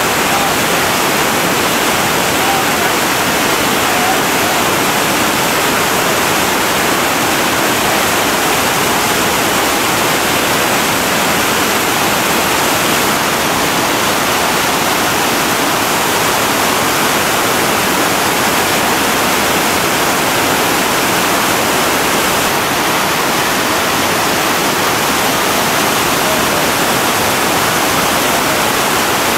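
Heavy whitewater rapids: a steady, loud rush of churning river water.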